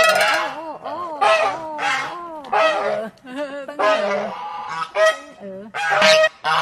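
A flock of domestic geese honking repeatedly, several birds calling over one another.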